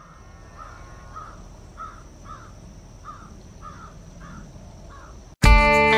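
A crow cawing over and over, about nine caws at roughly two a second, over a faint steady high tone. Near the end, loud guitar music cuts in abruptly.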